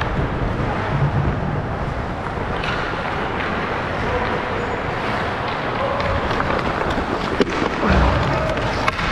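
Ice hockey skates scraping and carving on the rink ice, with wind noise from the skater's movement on a body-worn camera's microphone. A sharp click comes near the end, followed by a low thump.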